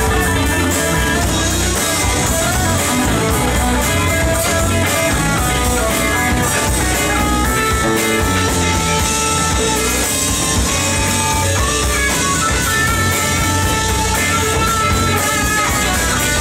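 Live rock band playing an instrumental passage: two electric guitars, one carrying a melodic line of held notes, over electric bass and drums with a steady beat.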